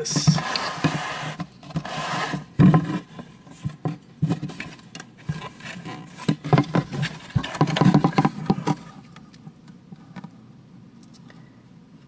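Handling noise from the Tiko 3D printer and its loose Bowden tube being moved about by hand: irregular rubbing, scraping and clicking of plastic and tubing. It is busiest through about the first nine seconds, then goes quieter.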